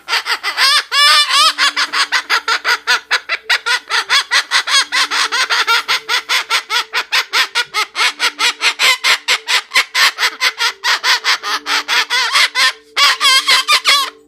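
Parrot calling in a rapid, unbroken string of short harsh notes, about seven a second, with louder drawn-out squawks about a second in and again near the end.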